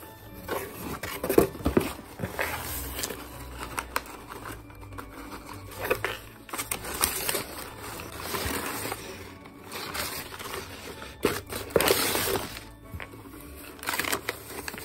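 Crumpled brown packing paper and a cardboard box rustling and crinkling in irregular bursts as a puppy roots through them, loudest about a second and a half in and again near twelve seconds, over background music.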